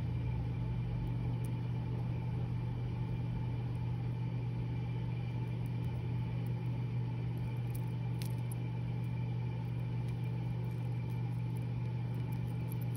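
Steady low mechanical hum, unchanging throughout, with a few faint clicks.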